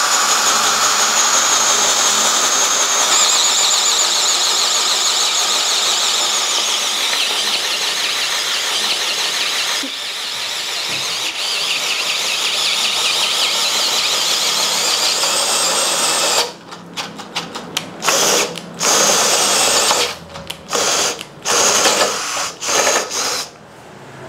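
Mollar MLR-CID20500-U cordless impact drill, a brushed-motor 18 V drill, boring into wood with a 40 mm spade bit. The motor runs steadily under load with a high whine for about sixteen seconds, then stops and starts in a string of short bursts.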